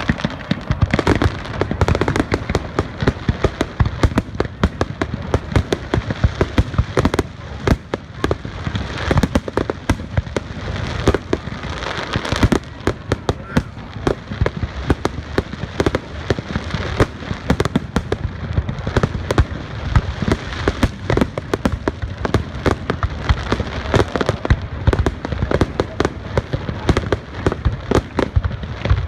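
Fireworks going off in rapid, continuous succession: a dense stream of sharp pops, crackles and bangs over a low rumble, with no break.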